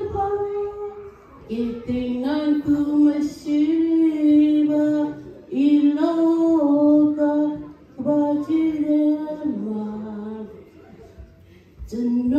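A woman singing solo into a microphone, holding long notes in phrases with short breaks between them.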